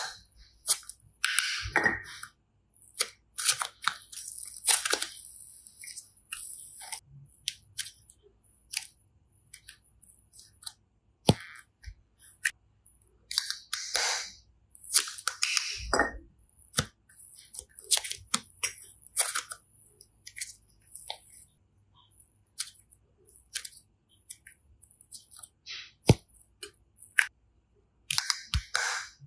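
Hands squishing and pulling slime: irregular sticky clicks, crackles and small pops, uneven in spacing.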